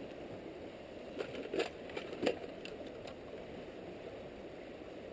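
A few light clicks and knocks of camp cooking gear being handled, clustered between about one and three seconds in, over a steady low background rush.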